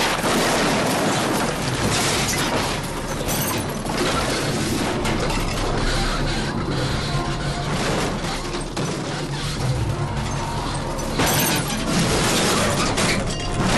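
A car tumbling over and over in a rollover crash: continuous crunching, clattering and rattling of metal body panels and flying parts against the ground, with a denser run of impacts near the end.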